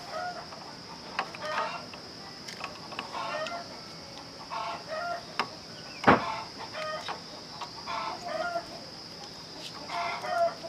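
Chickens clucking, short pitched calls about once a second, over a steady high-pitched drone. There is one sharp knock about six seconds in.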